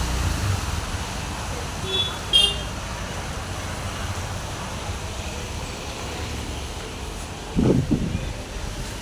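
Honda Activa 6G scooter on a test ride: steady road and wind noise, with no knocking or rattle from the rear. A short, high horn-like beep sounds about two seconds in, and there is a brief louder low sound near the end.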